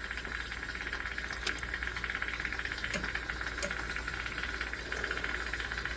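Jeweler's rotary tool fitted with a medium-grade rubber wheel, its motor running with a steady whir. There are a few faint ticks, three times.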